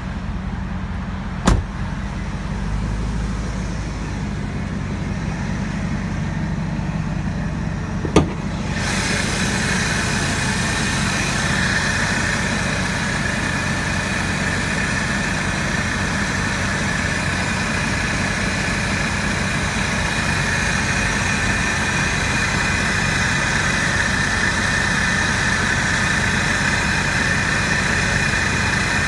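Supercharged 5.4-litre V8 of a 2000 Ford Lightning idling steadily, with two sharp clicks in the first eight seconds. About nine seconds in the sound turns brighter and closer, with a steady high whine over the idle.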